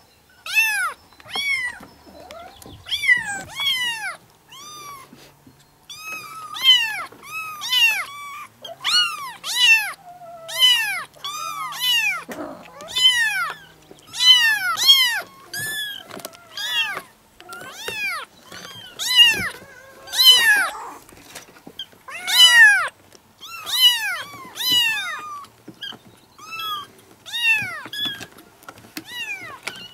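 A litter of four- and five-week-old kittens meowing over one another: many short, high-pitched mews in quick succession, each rising and then falling in pitch.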